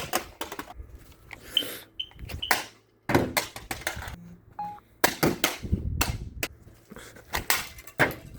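A carbon monoxide alarm being smashed: repeated, irregular knocks and bangs, with a few short high beeps about two seconds in.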